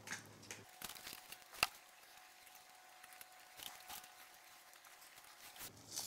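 Faint brushing of runny liquid silicone rubber with a bristle brush over a mold: soft scattered dabs and strokes, with one sharp click about a second and a half in.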